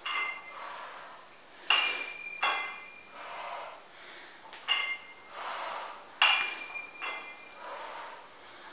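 Metal plates on a pair of 4 kg adjustable dumbbells clinking with a short ring each time they are raised and lowered in bent-over rows, about six clinks a second or two apart, with hard breathing between them.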